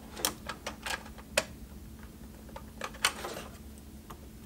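Irregular plastic clicks and taps from handling the small plastic bobbin cover of a cheap mini sewing machine while trying to fit it back on, with two louder clicks, about a second and a half in and about three seconds in.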